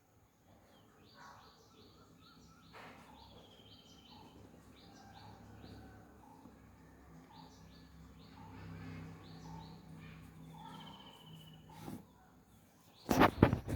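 Birds chirping: many short high chirps in quick series, with two brief descending trills, over a low steady hum. Near the end come loud bursts of rustling and knocking.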